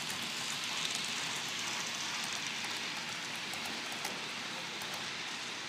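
Model passenger train rolling along the layout's track: a steady hiss of wheels on the rails with faint clicks.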